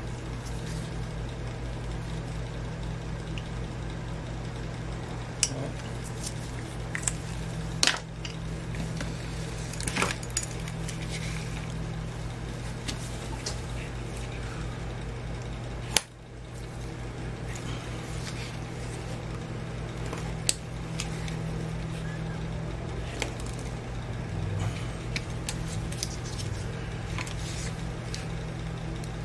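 A steady low hum with scattered clicks and light knocks as tools and a rubber bicycle inner tube are handled on a workbench.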